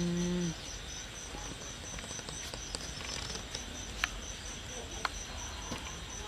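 Insect chirping in the background as a steady run of short, high-pitched pulses, about four a second, with a couple of sharp clicks later on. A low, steady pitched tone, the loudest sound, stops about half a second in.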